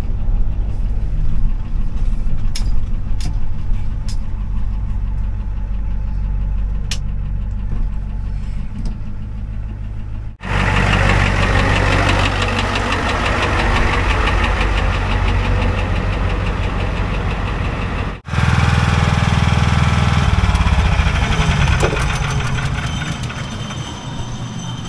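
Ford F350's diesel engine running steadily. About ten seconds in the sound turns suddenly louder and harsher, and it changes abruptly again about eight seconds later.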